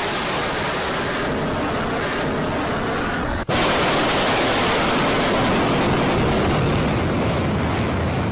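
Missile's rocket motor firing at launch and through its climb: a steady, loud rushing noise, broken by a momentary dropout about three and a half seconds in.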